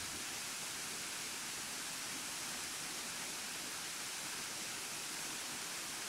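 Burgbach waterfall, a tall cascade falling down a rock face, giving a steady, even rushing hiss.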